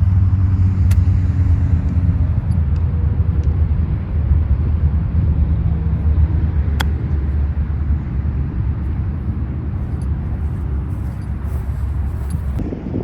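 Golf cart driving along, its motor running in a steady low hum, with a couple of sharp clicks from the cart rattling over bumps.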